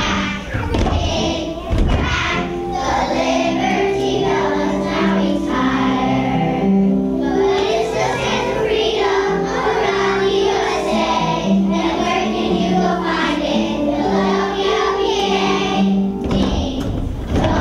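Young children's choir singing a song together over musical accompaniment, the voices holding long steady notes. A few low thumps sound in the first couple of seconds.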